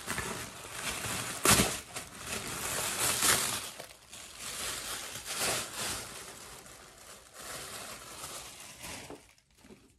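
Plastic wrapping crinkling and rustling as a handbag is pulled out of it, in uneven bursts that are loudest about a second and a half and three seconds in, then die away near the end.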